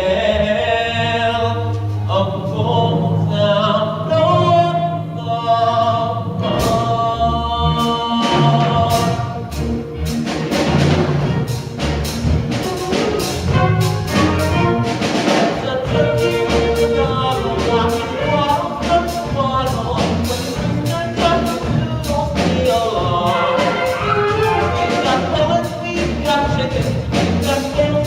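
Musical-theatre ensemble singing with instrumental accompaniment: a held sung chord first, then, about six seconds in, a quick percussive beat comes in under the continuing singing.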